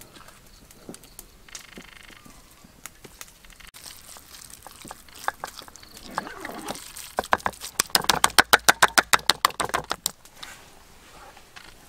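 A fast, even run of sharp knocks, about nine a second, starting about seven seconds in and lasting about three seconds, with scattered fainter knocks and rustling before it.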